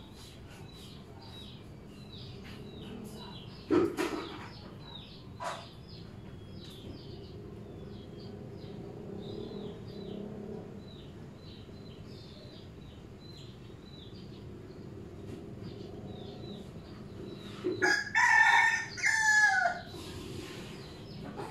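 A rooster crowing once near the end, a long call that drops in pitch as it finishes; this is the loudest sound. Small birds chirp faintly throughout, and there are two sharp knocks a few seconds in.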